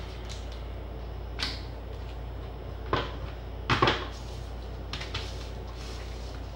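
Handling noise from items being moved and set down on a tabletop: a few short knocks and rustles, the loudest about four seconds in, over a steady low hum.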